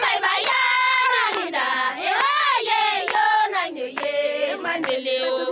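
Samburu women singing a traditional song together in high voices, with hand claps through the singing.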